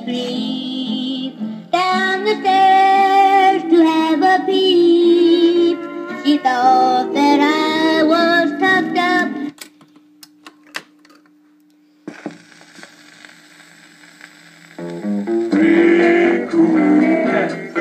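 A 45 rpm record playing through the speaker of a restored 1956 RCA 7HF-45 automatic record player: a song with singing, cut off about halfway through when the changer is cycled. A few sharp clicks and a faint steady hum fill the gap, then the next record starts with music a few seconds before the end.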